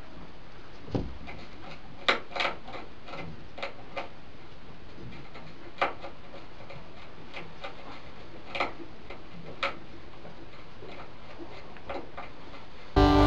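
A rat gnawing at wood inside a box trap: scattered sharp clicks and taps at irregular intervals over a steady hiss. Guitar music cuts in at the very end.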